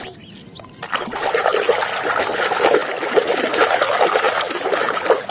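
Running water splashing over a muddy toy excavator as it is rinsed clean, starting about a second in.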